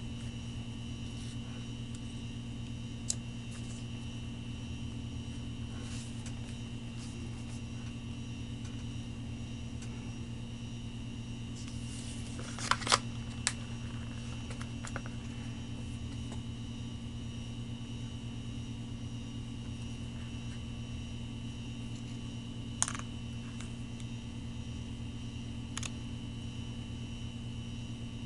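Steady low hum with a faint high whine, broken by a few sharp clicks and taps of a phone box and its packaging being handled, with a short cluster of louder taps about halfway through.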